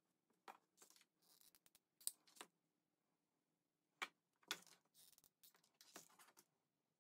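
Faint scattered taps, clicks and rustles of hands handling white jar lids on a plastic cutting mat and a glue gun lying on crumpled paper.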